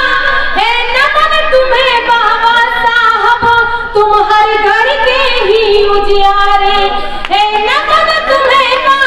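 A woman singing through stage microphones, holding long notes that slide and waver in pitch.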